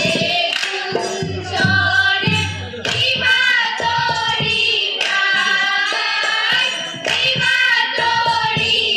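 Women's chorus singing an Assamese Holi song in unison, in phrases with short breaks, over rhythmic hand clapping and a hand-played barrel drum.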